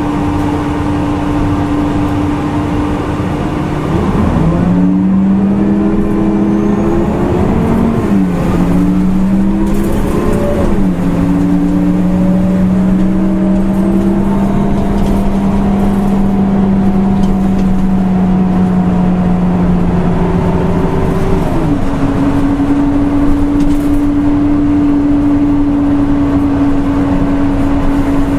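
Engine of a Nissan Diesel UA CNG city bus running. The note holds steady at first, then the bus pulls away, its pitch climbing in two steps with a dip between them like a gear change. It runs steadily for about ten seconds, then returns to the first steady note near the end.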